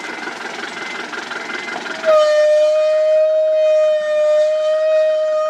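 Road-paving machinery running with a faint repeating reversing beep. About two seconds in, a vehicle horn sounds one long, steady blast that holds to the end.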